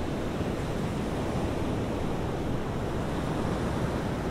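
Steady rushing of sea surf and wind: an even, unbroken noise with no single wave breaks standing out.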